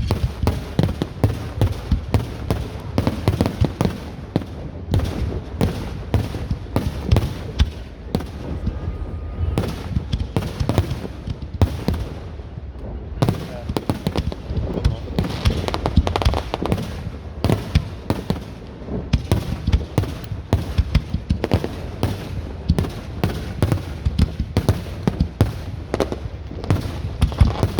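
Fireworks display: a rapid, continuous barrage of bangs and crackles, many per second, over a low rumble.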